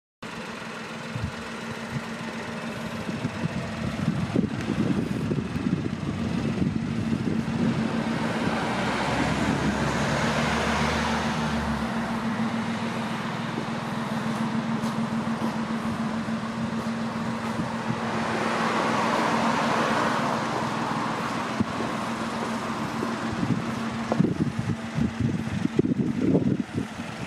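Outdoor road ambience with a steady low hum. Passing traffic swells up twice, about ten seconds in and again near twenty seconds. Irregular low thumps come and go, more of them near the end.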